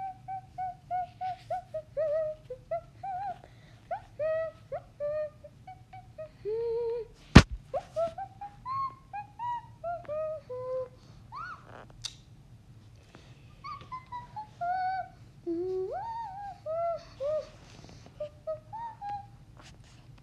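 A person humming a slow tune, short notes stepping and bending up and down. A sharp click about seven seconds in is louder than the humming, and a fainter click comes around twelve seconds.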